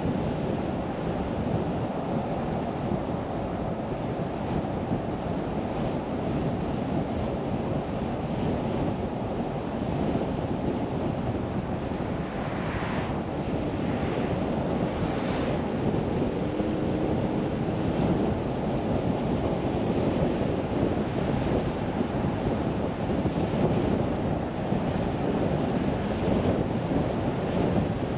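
Steady road noise of a car being driven, tyre rumble and wind hiss with most of the sound low down.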